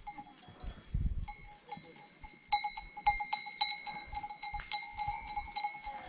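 Bells worn by a herd of goats clanking and ringing, sparse at first, then busier and louder from about halfway through. A brief low rumble about a second in.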